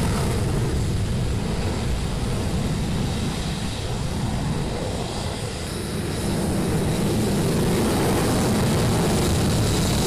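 F-35A's single F135 afterburning turbofan at full afterburner during the takeoff roll: a loud, steady low rumble with hiss above it. It eases briefly about halfway through and builds again.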